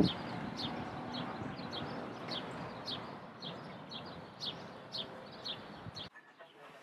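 A bird calling over a steady background hiss, with short, high, downward-sliding chirps about twice a second. The chirps and hiss cut off suddenly about six seconds in.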